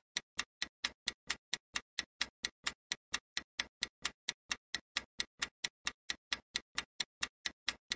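Countdown timer sound effect: steady clock ticking, about five ticks a second, running while the time to answer a quiz question counts down.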